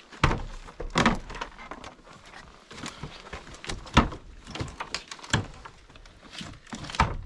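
A series of irregular knocks and clatters, about a dozen, with the loudest about four seconds in and another near the end.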